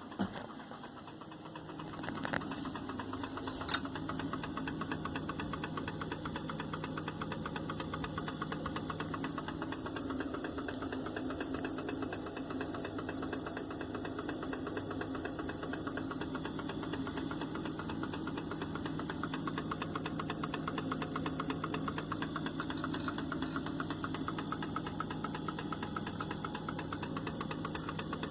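Hotpoint FSFL58G fridge freezer's compressor running with a steady hum and a rapid, even ticking, which the owner hears whenever the compressor works and suspects is a fault. The ticking gets louder about two seconds in, and there is a single sharp click shortly after.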